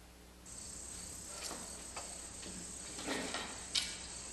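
Crickets chirring steadily in a high, even band, with a few soft scuffs and a light knock near the end.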